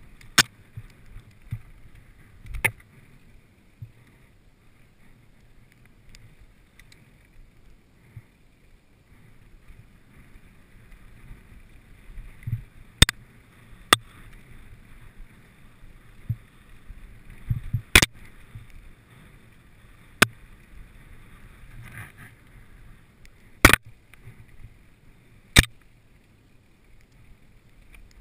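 Mountain bike descending a dirt singletrack: a steady rush of tyres on dirt and wind, broken every few seconds by sharp clacks and knocks of the bike's chain and frame jolting over bumps.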